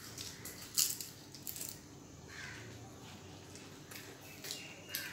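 Close eating sounds: scattered sharp clicks and crisp crunches of chewing and of fingers working rice and fried papad on plates, the loudest just under a second in.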